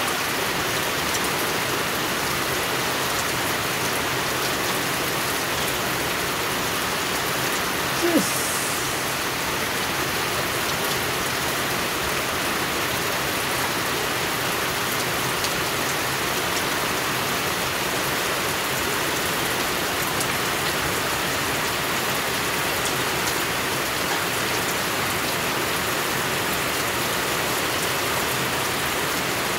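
Steady rain falling on a small garden pond and wet stone paving: an even hiss of drops. About eight seconds in, one brief, louder sound stands out.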